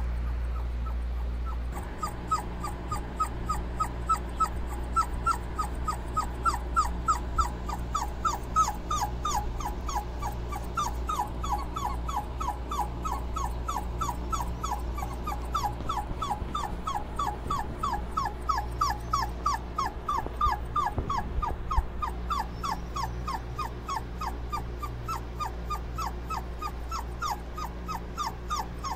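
A puppy whining in a long, even series of short, falling cries, about three or four a second, starting about two seconds in, over a steady low hum.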